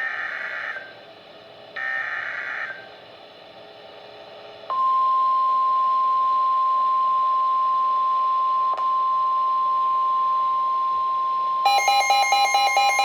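Two bursts of SAME digital header data: short raspy warbling squawks, each about a second long. About five seconds in comes the steady single-pitch NOAA Weather Radio warning alarm tone, about 1050 Hz, held for about nine seconds. Near the end a second electronic alert tone joins it, pulsing on and off at several pitches; together they announce an emergency alert about to be read.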